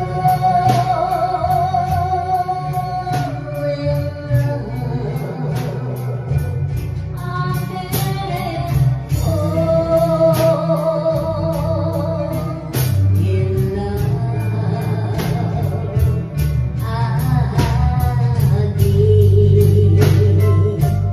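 A woman singing into a microphone, holding long notes with vibrato, over band accompaniment with drums keeping a steady beat.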